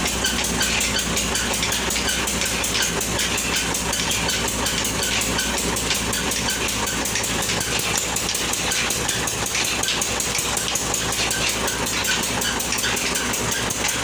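Grain flour mill (chakki) running and grinding, a steady mechanical noise with a fast, even rattle over a low hum; the mill is said to make more noise than it should.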